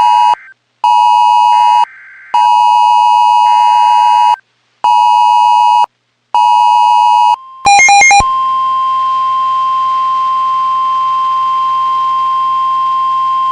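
Wireless Emergency Alert attention tone on a phone: a harsh two-pitch beep just under 1 kHz, sounding in the WEA rhythm of one long and two short pulses. About eight seconds in, a brief warbling data burst gives way to the steady single-pitch 1050 Hz warning alarm tone of a NOAA Weather Radio, signalling a tornado warning.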